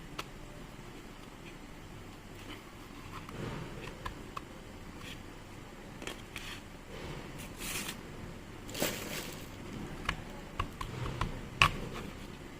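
Scattered clicks, taps and rustling of small parts being handled while a hammer drill is being worked on, with no motor running. The clicks come more often in the second half, and the sharpest comes near the end.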